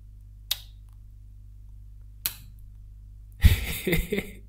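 A steady low hum with two sharp clicks, one about half a second in and one past two seconds. Near the end a man gives a short laugh, which is the loudest sound.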